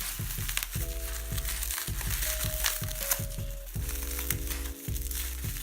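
Plastic packaging crinkling and crackling as it is pulled and torn open, over background music with a steady beat and a deep bass line.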